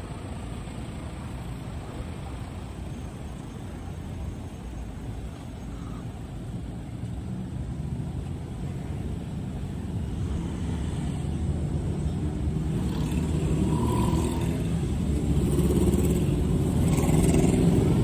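Road traffic: cars passing on the road close by, a steady rumble that grows louder over the second half.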